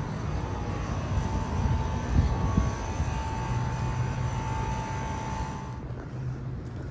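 Outdoor air-conditioner condenser unit running: a rushing fan over a steady low compressor hum. The rush drops away near the end while the hum carries on.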